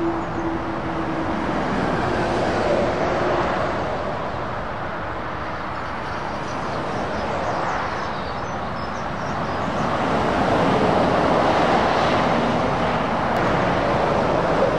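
Road traffic of lorries and cars passing: diesel engines and tyre noise, with a steady engine tone fading out in the first few seconds. The noise swells again about two-thirds of the way in as a Scania heavy-haulage tractor unit pulling a low loader goes by.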